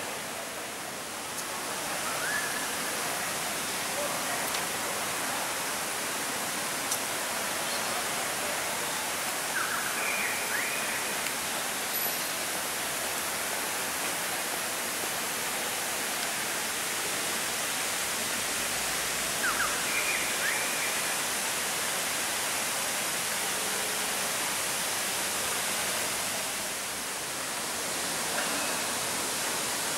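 Steady, even rushing hiss of outdoor ambience, with a few faint short chirps around ten and twenty seconds in.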